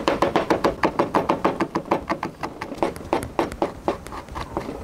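Kitchen knife rapidly chopping chilies on a plastic cutting board: quick, even knocks of the blade hitting the board, about six a second, growing softer and more spaced out near the end.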